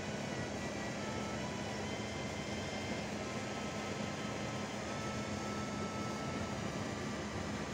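Steady hum of running dry-dock machinery: a constant low drone with faint, steady whining tones above it.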